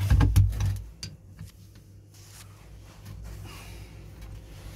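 Screwdriver working on the stuck screws of an old ZAZ-965 starter: a few knocks and clicks of metal in the first second or so, then quieter scraping over a low steady hum.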